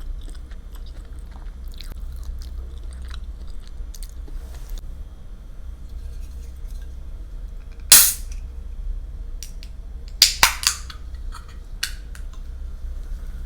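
Close-miked eating: quiet chewing with small mouth and food clicks. One loud sharp click comes about eight seconds in, and a quick run of three or four loud clicks follows a couple of seconds later, over a steady low hum.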